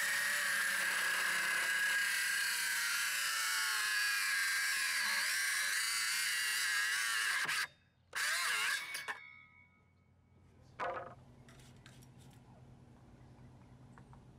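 Porter-Cable cordless circular saw running and cutting through a pressure-treated pine board, its motor whining steadily. It stops about seven and a half seconds in, runs again for about a second and winds down, followed by a few faint taps.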